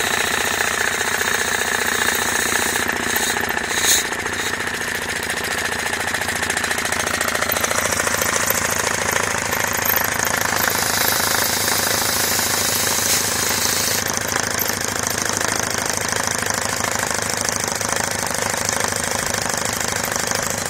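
Homemade belt-driven piston air compressor running steadily with a rapid hammering chatter as it pumps up its tank. The drive belt is out of alignment, which makes it noisy. There is one sharper knock about four seconds in.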